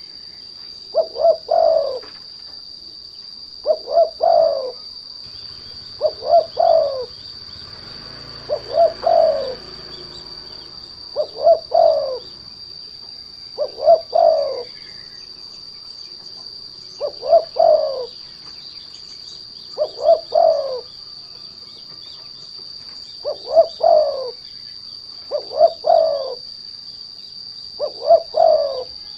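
Spotted dove (derkuku) cooing a short phrase of about three notes, repeated about every two to three seconds, over a steady high insect trill.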